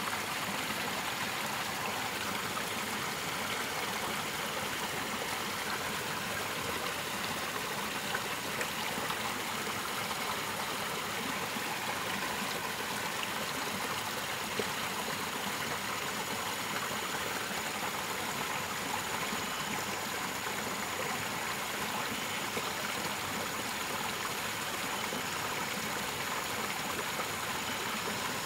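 Small stream of water running and spilling over rocks into a shallow pool, a steady, unbroken rush of water.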